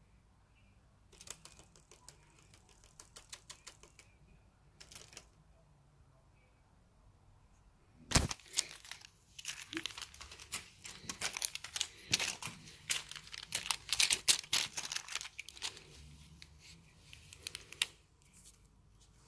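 Crinkly film of a kashakasha cat teaser toy crackling as a cat grabs and bites at it: a few short bursts in the first seconds, then dense crinkling from about eight seconds in until near the end.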